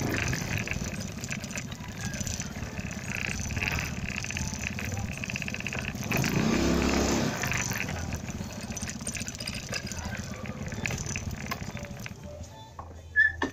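Motorcycle riding along a road, its engine running under steady traffic and road noise. About six seconds in, a louder engine note swells for a second or so. Near the end the noise drops and a single sharp click sounds.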